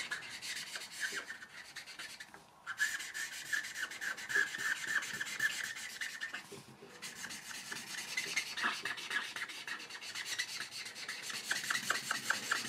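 Black felt-tip marker pen scribbling rapidly back and forth on flip-chart paper, shading an area in solid black. The strokes stop briefly twice, about two seconds in and again about six and a half seconds in.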